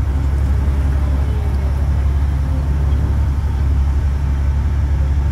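Sightseeing boat's engine running steadily under way, a loud, even low drone.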